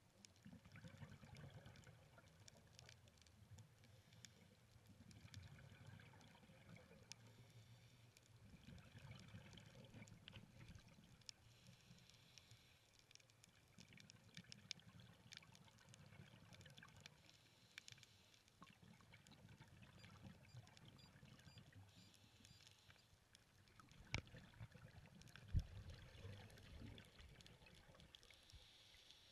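Near silence: the faint, muffled sound of an underwater camera housing, a low rumble of water with a few scattered clicks, two sharper ones close together near the end.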